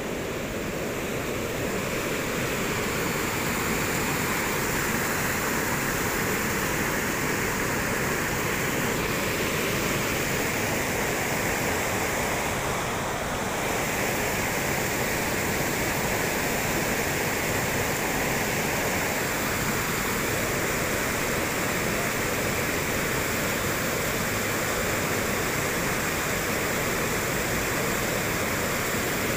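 Muddy floodwater from a river in spate rushing over a concrete road, a steady loud rush of water.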